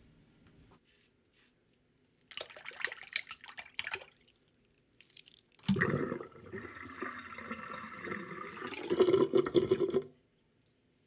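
A short crackling rustle, then about halfway in a toilet flushes: a sudden loud rush of water that runs about four seconds and cuts off.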